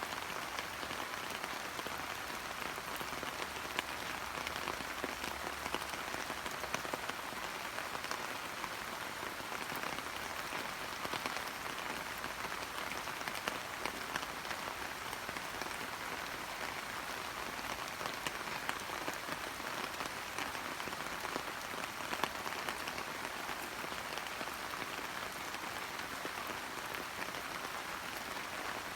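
Steady rain falling on hydrangea plants: an even hiss of rain with many small drop ticks spattering on the leaves.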